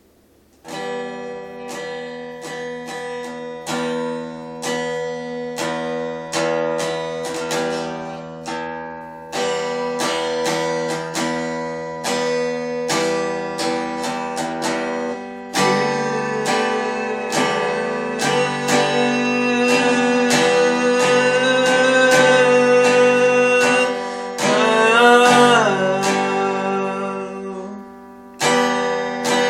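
Acoustic guitar played solo, picked and strummed chords starting about a second in and growing fuller about halfway through, with a bent, gliding note a few seconds before the end.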